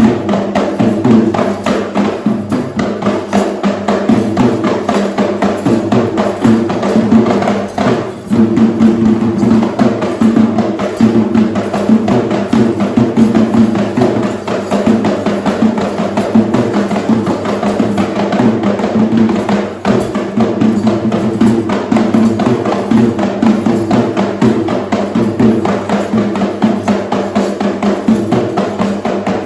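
Sri Lankan traditional drums playing a fast, dense rhythm for a ritual dance, with brief breaks in the drumming about 8 and 20 seconds in.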